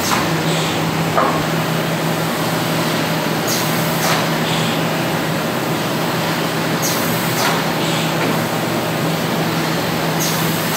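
SPS Technoscreen sheet-fed screen printing press running, with a steady hum. Each machine cycle brings a short hiss and a knock, repeating about every three and a half seconds, three times here.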